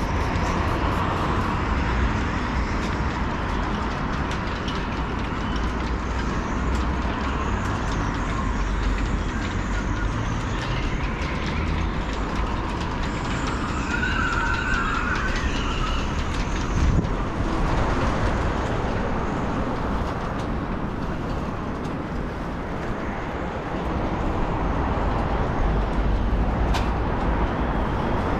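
Wind buffeting the microphone: a steady, uneven low rumble with a noisy hiss above it, with a brief high chirp about halfway through.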